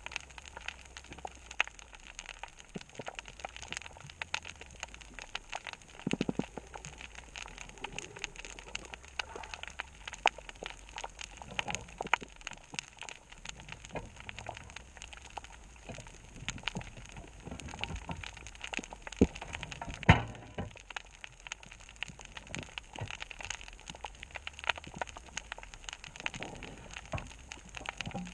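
Underwater reef crackle heard from a camera below the surface: a dense, constant scatter of sharp clicks typical of snapping shrimp, with a few louder knocks, the loudest about twenty seconds in.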